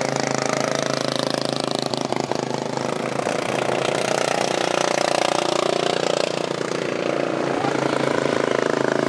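Racing lawn mower's engine running hard as the mower passes close by, its pitch rising and falling.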